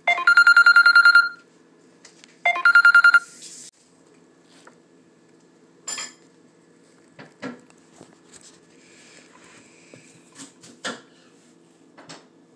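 Telephone ringing with a rapid electronic trill: two rings, the first about a second long, the second shorter. A few light clicks and knocks follow.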